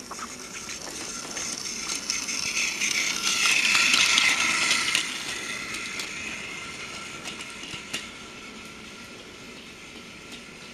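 Battery-powered toy Thomas the Tank Engine running on its track: its small motor whirs and its wheels click over the track joints. The sound grows louder to a peak about four seconds in, then fades.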